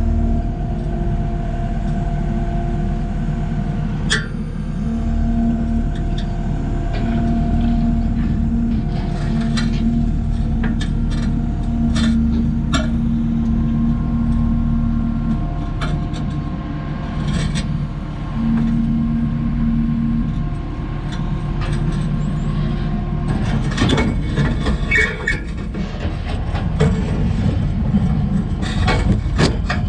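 Kubota skid steer's diesel engine running steadily under load, with a pitched hydraulic whine that comes and goes in stretches and scattered clanks and knocks of the bucket working concrete.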